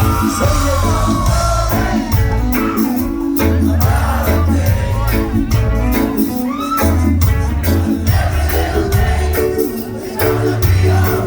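Live reggae band playing: a deep, rhythmic bassline under sharp drum hits and guitar, with voices singing over it.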